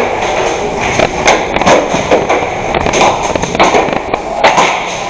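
Airsoft gas blowback guns firing: many sharp cracks in quick, irregular succession, several a second.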